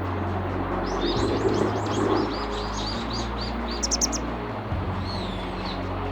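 A small bird chirping: a quick run of short, high rising-and-falling notes, then a brief buzzy higher call, over a steady low hum.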